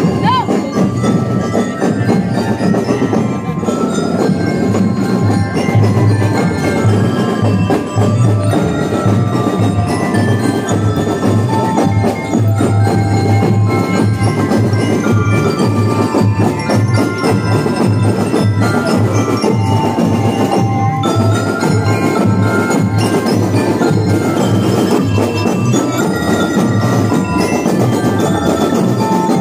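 Marching drum and lyre band playing: metal bell lyres ringing out a tune of quick struck notes over a steady drum beat.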